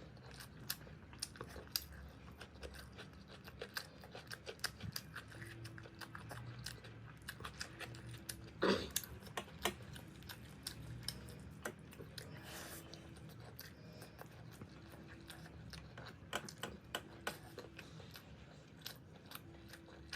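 A person chewing and crunching food close to the microphone, with irregular wet clicks and crunches and one louder crunch about nine seconds in.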